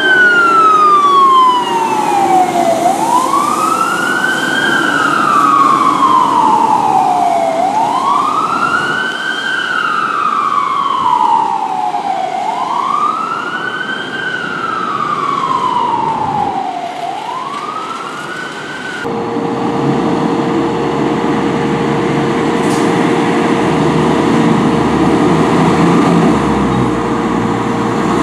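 Fire truck siren wailing in repeated sweeps, each rising quickly and falling slowly, about every four and a half seconds. About nineteen seconds in it gives way to a fire truck's engine running, with a steady hum.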